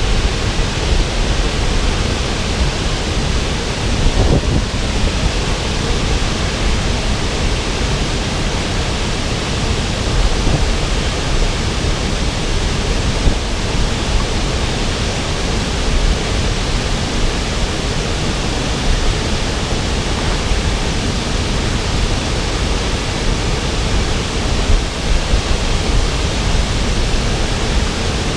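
Loud, steady rush of a waterfall with a 15-metre drop, an unbroken roar of falling water with no change.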